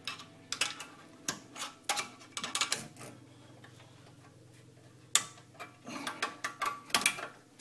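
Screwdriver and needle-nose pliers clicking and scraping against the steel spring clip of a Mercedes W204 C-Class front brake caliper as the clip is levered off. The clicks come in quick runs, with a lull of about two seconds in the middle.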